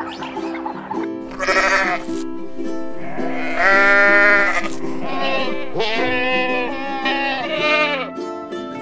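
Goat bleating several times, drawn-out wavering calls, the loudest about four seconds in, over light ukulele background music.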